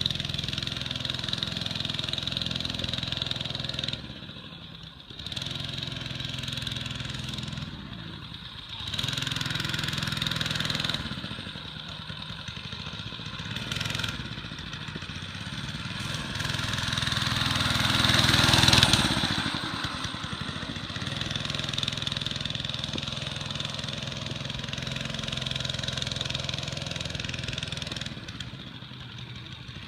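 Mini bike's small single-cylinder engine running and being revved up and down. It climbs to its loudest rev a little past halfway, then settles back to a lower speed.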